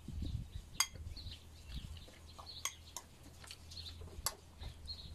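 A metal spoon clinking against a white ceramic bowl a few times while eating from it, with birds chirping in the background.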